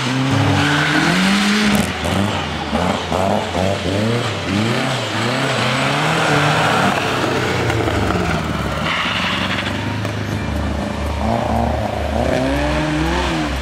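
Rally car engines revving hard through a hairpin, an Opel Manta and then a Ford Escort Mk2, the pitch repeatedly rising and dropping with throttle blips and gear changes.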